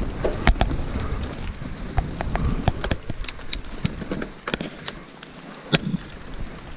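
Mountain bike rattling down a rocky downhill trail: a steady rumble of tyres over stones with many sharp knocks and clatters, and wind on the microphone. The rumble eases about four seconds in, and a hard knock comes near six seconds.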